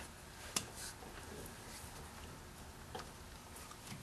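Quiet clicks from a Grizzly metal lathe's geared lead screw and carriage as the chuck is turned slowly by hand, with one sharp click about half a second in and a couple of fainter ticks later.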